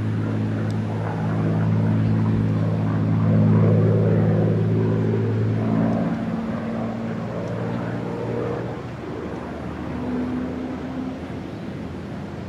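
P-51 Mustang's Rolls-Royce/Packard Merlin V-12 engine running as the fighter flies past, growing louder to its loudest about three to four seconds in, then fading away.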